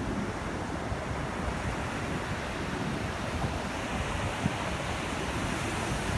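Pacific surf breaking on a sandy beach: a steady rush of waves, with wind buffeting the microphone.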